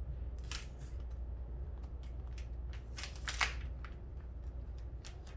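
Plastic packaging bag crinkling in short bursts as a cloth mask is slipped into it: once about half a second in, loudest around three seconds in, and briefly near the end, over a steady low hum.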